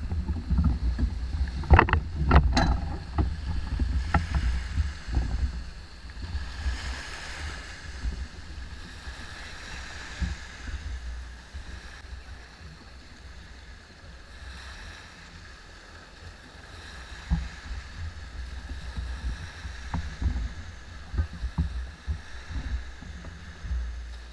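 Wind noise on a GoPro's microphone mounted on a Hobie 16 catamaran at the water's edge, with small waves washing against the hull. A few sharp knocks come about two seconds in.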